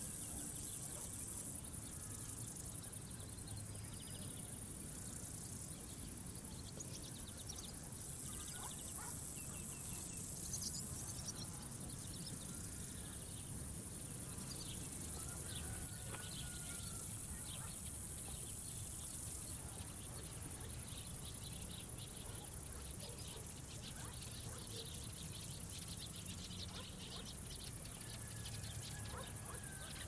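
Crickets stridulating in a very high-pitched buzz that comes in bouts: one at the start, one from about eight to eleven seconds in, and a longer one that builds from about thirteen seconds and stops just before twenty. Between the bouts a softer high insect hiss carries on, with a few faint bird chirps.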